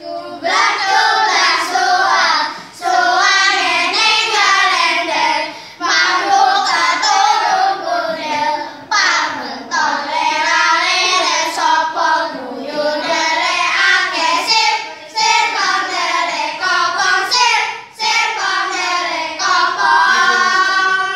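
A group of boys singing a song together, loud, in phrases with short breaks between them, ending on a held note.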